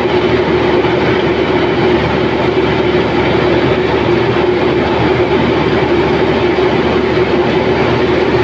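Zoomlion tracked combine harvester running steadily while harvesting paddy: a loud, even engine drone with a constant mechanical clatter from the working cutting header, heard close up from the operator's platform.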